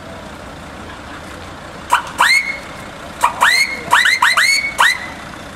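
A series of about nine shrill whistles in two quick bursts. Each one slides sharply up and then holds a high note for a moment.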